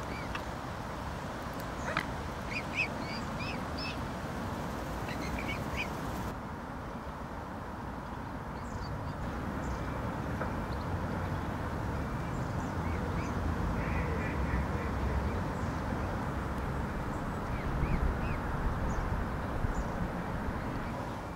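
Waterfowl calling: short, high calls in small clusters, most in the first few seconds and fainter ones later, over a steady low rushing background.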